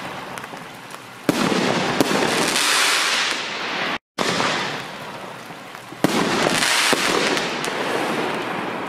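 6-inch canister firework shell bursting: two sharp bangs about five seconds apart, each followed by a dense crackling hiss that slowly fades. The sound cuts out briefly just after 4 seconds.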